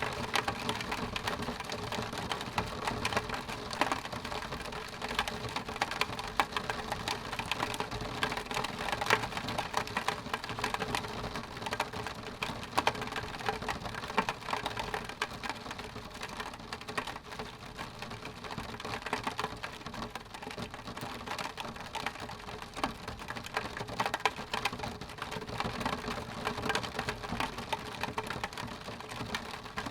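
Steady rain falling on a window pane: a dense, continuous stream of small drop ticks against the glass.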